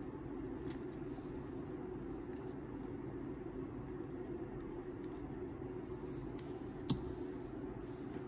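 Scissors snipping the cotton wick ends on a rebuildable atomizer coil: a few faint snips, with one sharp click about seven seconds in, over a steady low background hum.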